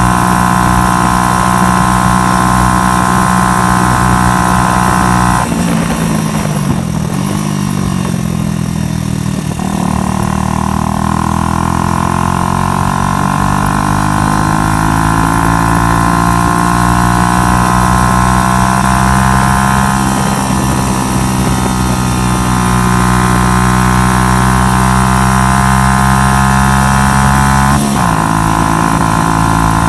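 Snakemotors 77 125cc motorcycle engine running under way at steady revs. The revs fall away about five seconds in and climb slowly back over the following seconds, and a quick dip and recovery near the end sounds like a gear change.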